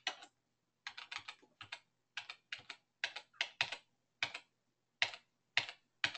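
Computer keyboard keys tapped in short, uneven runs of sharp clicks, a key or two at a time.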